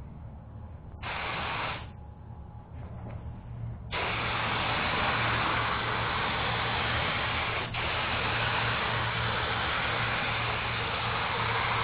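Compressed-air paint spray gun hissing: a short burst about a second in, then a long continuous spray from about four seconds in, briefly interrupted near eight seconds. A steady low hum runs underneath.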